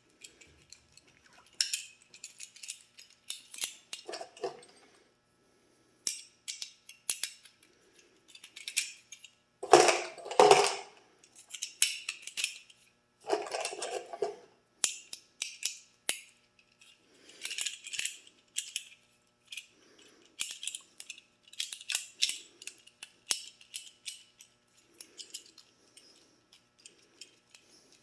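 Intermittent light metallic clicks and rattles from handling a Milwaukee M12 rivet gun and its parts, with two louder, fuller bursts about ten and thirteen seconds in.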